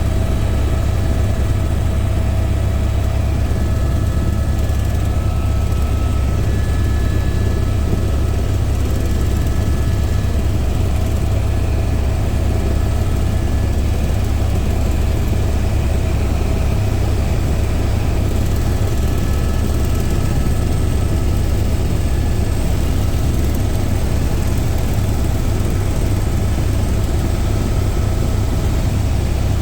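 Helicopter turbine and rotor noise, a steady loud drone heavy in the low end with a faint steady whine above it, unchanging throughout.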